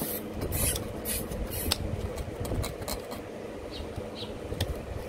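Knives scraping and cutting through small tuna on wooden cutting boards: a run of short, irregular scraping strokes.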